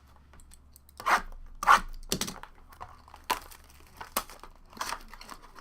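Wrapping on a box of trading cards being torn open and crinkled, in about six short rips, the loudest a little under two seconds in.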